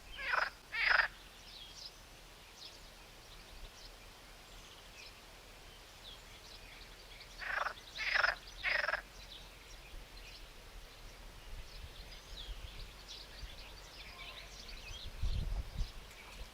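Harsh animal calls, two in quick succession near the start and three more about halfway through, over faint high bird chirps; a brief low rumble near the end.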